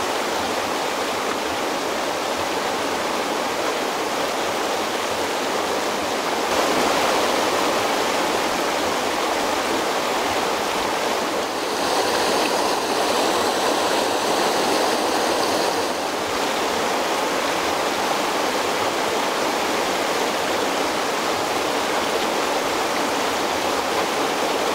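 Fast-flowing alpine river, the upper Isar, rushing over its gravel bed: a steady rush of water that steps up and down slightly in level a few times.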